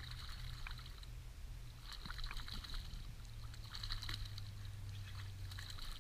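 A hooked trout splashing and thrashing at the water's surface beside the boat in about four short bursts, over a steady low hum.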